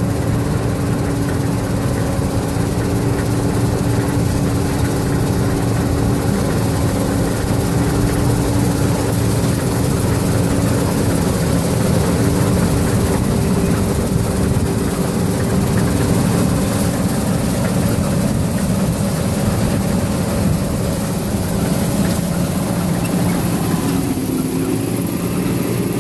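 Diesel engine of a large farm machine, a tractor or combine, running steadily at a constant speed, with its pitch dipping slightly near the end.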